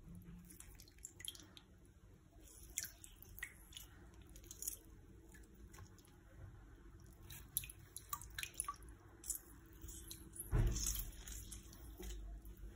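Lemon wedges squeezed by hand over a basin of water, juice dripping and plopping into it in scattered faint drips. A louder splash of the hand in the water near the end.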